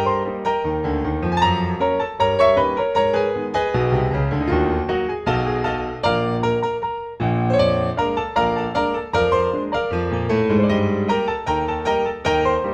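Background piano music: a steady stream of struck notes.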